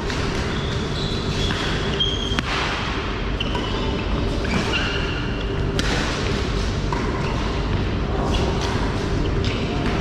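Badminton play: a few sharp racket hits on the shuttlecock, a few seconds apart, with short high squeaks, over a steady hum of hall noise.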